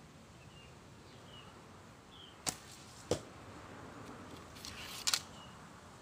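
Traditional bow shooting: a sharp crack and, half a second later, a thud, then a rising whoosh of an arrow in flight that ends in a loud double crack as it strikes.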